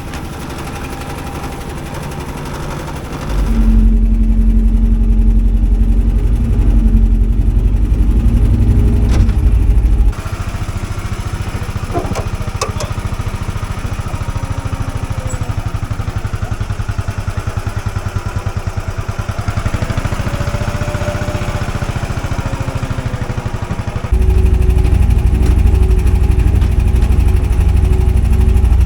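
Tractor engine running steadily, its level jumping abruptly louder about three seconds in, dropping back about ten seconds in and rising again near the end.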